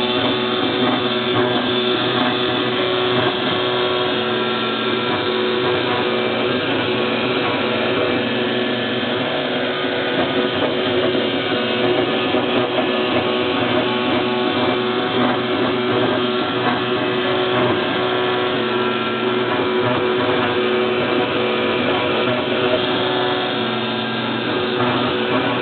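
Homemade CNC wood router milling: a steady whine from its belt-driven spindle, running at about 10,000 rpm, layered with the tones of its NEMA 17 stepper motors. One of these tones cuts in and out as the axes move.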